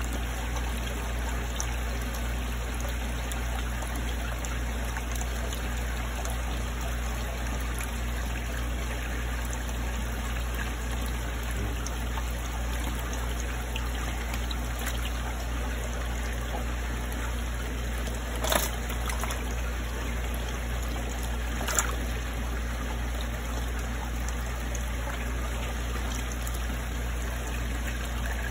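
Water trickling steadily in a fry tank, as from the tank's circulation, over a low steady hum. Two short sharp clicks come about 18 and 22 seconds in.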